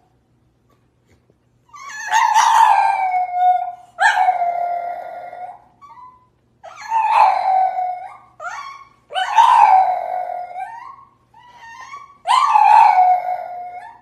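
French bulldog howling: a run of about six long calls after a short pause, each starting high and sliding down to a held tone.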